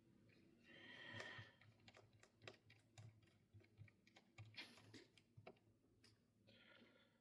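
Faint small clicks and ticks of a screwdriver working screws into a laptop's battery, with two brief scrapes, about a second in and near the end.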